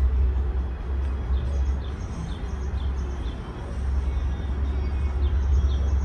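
Outdoor ambience dominated by a low, blustery rumble of wind on the microphone, with a small bird chirping faintly and repeatedly, about twice a second.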